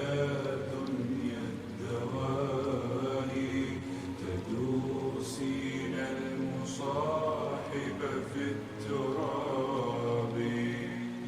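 Slowed-down, reverb-heavy a cappella nasheed: layered voices chanting a drawn-out melody with long held notes.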